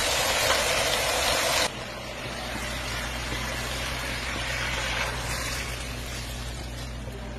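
A loud, steady rushing hiss cuts off suddenly a little under two seconds in. It is followed by a quieter pouring of thin liquid from a plastic jug into an aluminium pressure cooker full of vegetables and sauce, over a low steady hum.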